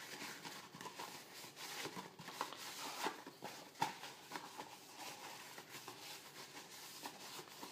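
Paper towel rubbing oil around the inside of a plastic margarine tub: faint rustling and wiping, with a few light clicks and knocks of the plastic.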